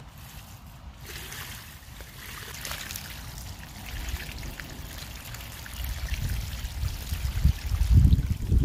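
Muddy water pouring out of a tipped plastic basin and splashing onto the ground, starting about a second in and growing louder, with strong low buffeting near the end.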